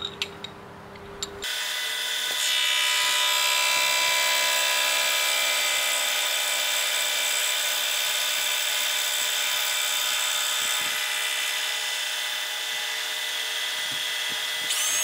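Milling machine running a cut on a steel part's flat: a steady, high-pitched whine made of many tones that starts suddenly about a second and a half in and grows louder a second later. A few clicks come before it starts, and near the end its pitch begins to fall as it winds down.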